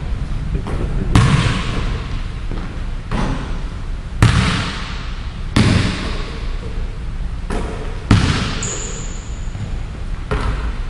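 Basketball smacking on a hardwood gym floor: about seven sharp, irregular slaps, each ringing on in a long echo through the hall. A brief high squeak comes near the end.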